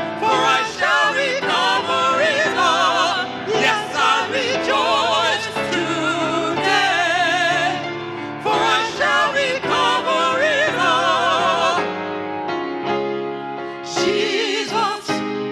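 Gospel song: a singer holding long, melismatic notes with wide vibrato over sustained instrumental accompaniment.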